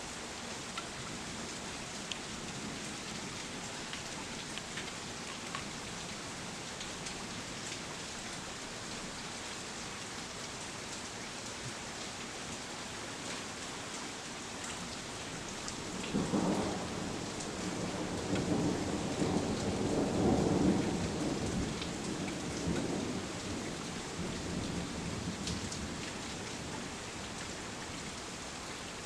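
Steady rain falling, with a rolling rumble of thunder that starts a little past halfway, swells for several seconds and dies away.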